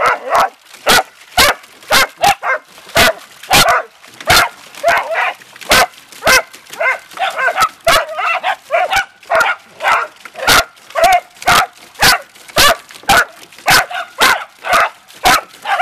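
Small dachshund-mix dogs barking over and over, about two sharp barks a second with yips in between, excited barking as they play at the spray from a garden hose.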